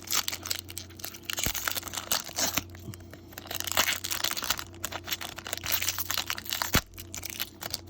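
A baseball card pack's wrapper being torn open and crinkled by hand: irregular crackles, rustles and tearing.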